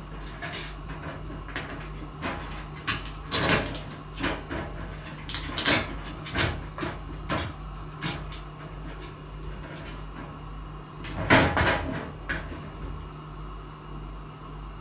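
Cat flap knocking and clattering in irregular bursts as a cat paws and pushes at it, playing with another cat on the other side. The loudest clatters come about three and a half seconds in and again about eleven seconds in.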